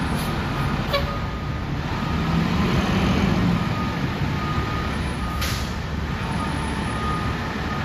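Fire engine's engine running as it backs into its station, swelling briefly, with a reversing beeper sounding on and off. A short hiss of air comes about five and a half seconds in.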